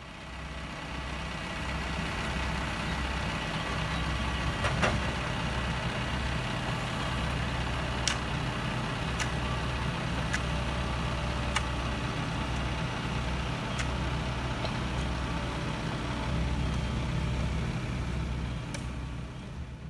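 Diesel engines of a farm tractor and a backhoe loader running steadily at idle, with a low pulsing rumble. Several short, sharp clicks sound over it, about seven in all.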